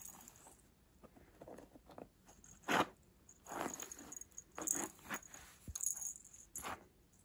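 A cat's paws and claws scratching and rustling at a woven cotton rug, in several short scratchy bursts spread through the second half, the sharpest a little under three seconds in.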